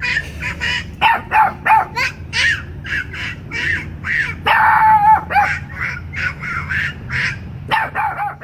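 Boston terrier puppy barking over and over in high, yappy barks, a few a second, with one longer drawn-out call about halfway through.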